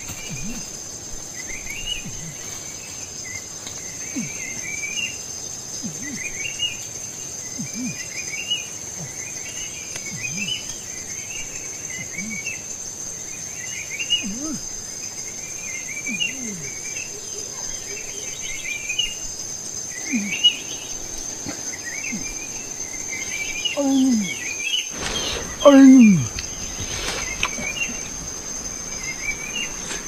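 Tropical forest ambience: a steady high-pitched insect drone, with a bird's short chirping phrases repeating about once a second and lower rising-and-falling calls every couple of seconds. Near the end a few louder, falling calls stand out.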